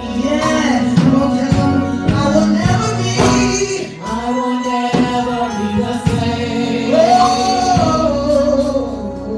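Gospel worship music: singing over a band, with sustained chords and regular drum hits.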